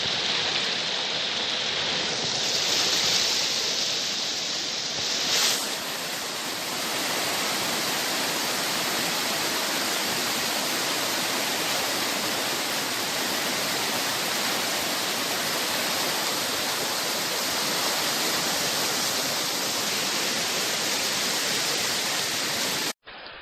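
Steady rushing of a waterfall in full flow, swelling briefly about five seconds in. It cuts off abruptly near the end.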